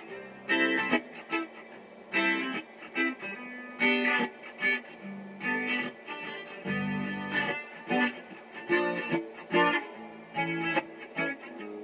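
Electric guitar played solo: short strummed chords and plucked single notes in a loose, jamming rhythm.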